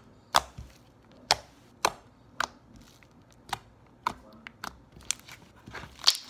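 Slime activated with Tide laundry detergent making sharp clicking noises as fingertips poke and press into it: about a dozen separate clicks at irregular intervals, a few a second.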